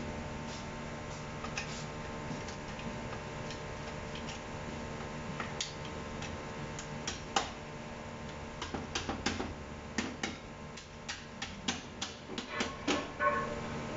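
Irregular metallic clicks and taps from a long screwdriver working inside the cast aluminium case of a U441E automatic transaxle during assembly. They start about five seconds in and come more thickly near the end, over a steady background hum.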